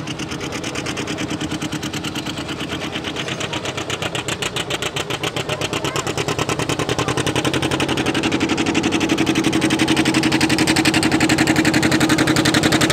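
Antique John Deere tractor engine working hard under load as it pulls a weight-transfer sled, a rapid, even beat of exhaust pulses that grows steadily louder as the tractor comes closer.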